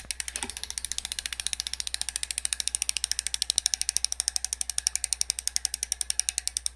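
Novatec D482 rear mountain-bike hub freewheeling: its freehub ratchets in a rapid, even run of clicks. The clicks quicken as the wheel is spun up and slow again near the end as the spin dies. Not very loud for a hub.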